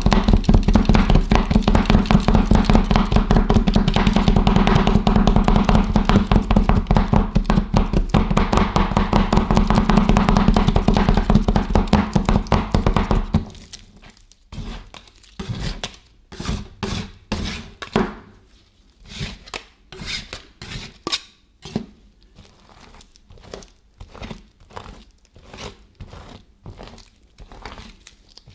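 Metal spatulas chopping rapidly against the frozen plate of a rolled ice cream pan, a dense run of strikes that stops abruptly about halfway through. After that come slower, scattered scrapes and taps of the spatulas on the plate.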